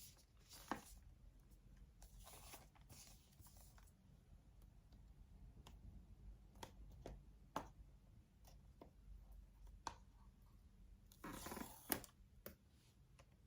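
Faint handling of packaging: scattered light clicks and taps, with a few brief rustles, the loudest about eleven seconds in and ending in a sharp click.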